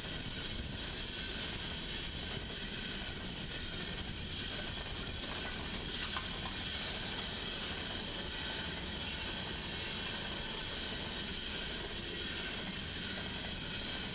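Union Pacific coal train rolling past on the rails, a steady, even rumble with a constant hiss.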